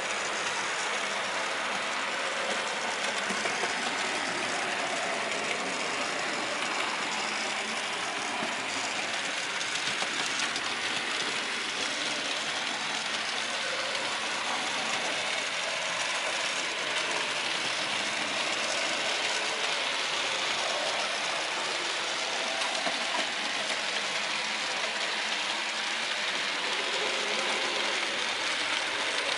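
Model railway locomotive, a BR Standard Class 4 No. 75027, running along the layout hauling its coaches: a steady mechanical whirr of the motor and gears with the wheels rolling on the track.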